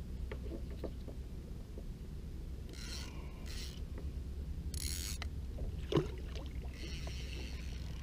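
Fishing reel ratcheting in short rasping bursts as a hooked fish is played on a bent rod, with one sharp knock about six seconds in, over a steady low rumble.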